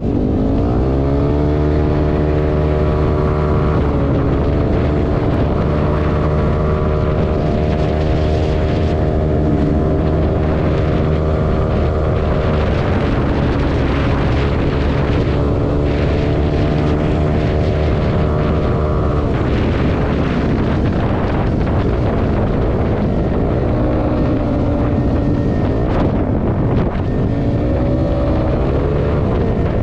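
195cc Yamaha Aerox scooter's single-cylinder engine running at highway cruising speed, with wind noise on the microphone. The engine's pitch dips and recovers about four seconds in, falls away around twenty seconds in, and climbs again near the end.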